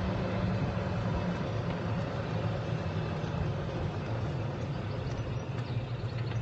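Golf cart running steadily as it drives along: a low hum with an even hiss above it.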